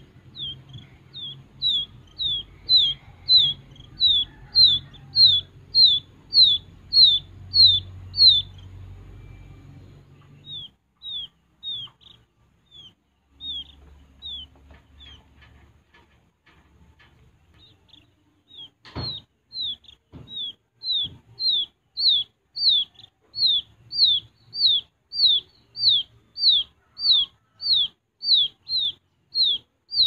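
Wild quail chicks peeping: a high, downward-slurred peep repeated about twice a second. It fades for several seconds midway, then comes back loud. A single sharp knock sounds about two-thirds of the way through.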